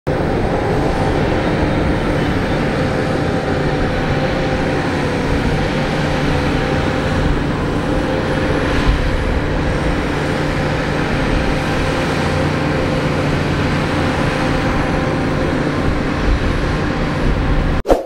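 Diesel engines of Shantui crawler bulldozers running steadily under load while pushing mud, a constant engine note that cuts off abruptly near the end.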